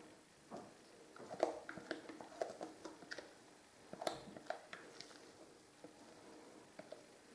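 Spatula scraping thick whipped cream mixture out of a mixing bowl into a plastic tub: faint, irregular scrapes, soft squishes and light taps.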